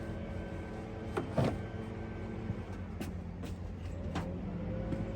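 A few sharp metallic clinks and knocks from a socket and hand tools being handled, the loudest about a second and a half in, over a steady low hum.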